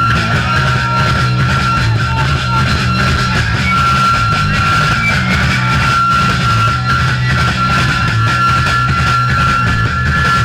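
Loud, distorted punk rock played by a live band with electric guitars and drums, with a steady high-pitched whine running under it.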